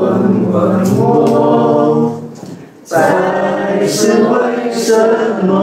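Voices singing together, unaccompanied, in long held notes. The singing breaks off about two seconds in and starts again about a second later.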